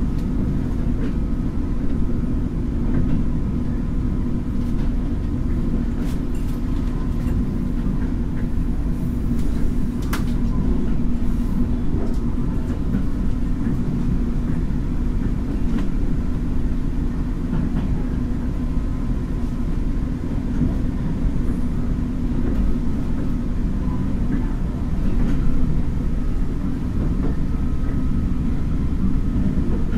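Taiwan Railway DRC1000-series diesel railcar running at about 34 km/h: a steady low rumble of engine and wheels on the rails, with a few sharp clicks from the track, the clearest about ten seconds in.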